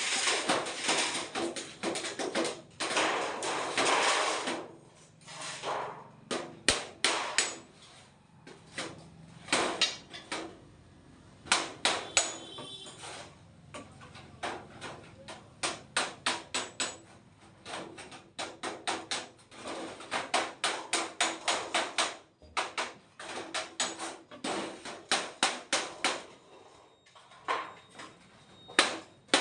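Repeated hammer blows in runs of quick strikes, about three a second, with short pauses between runs, as in battery repair work.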